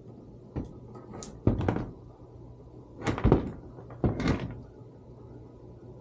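Metallic knocks and clatters from sheet-metal panel and tools being handled at an HVAC blower cabinet. There is a single click, then three short bursts of rattling, with a low steady hum underneath.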